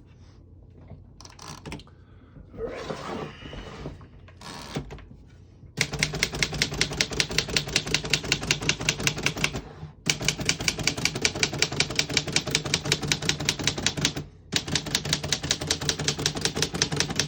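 Barr Universal portable typewriter being typed: a fast, even run of keystrokes, about five a second, in three stretches with short pauses between them. Before that come a few seconds of softer scrapes and clicks of the machine being handled.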